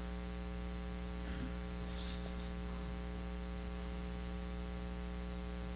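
Steady electrical mains hum, a low buzz with a stack of even overtones, with a faint soft noise about two seconds in.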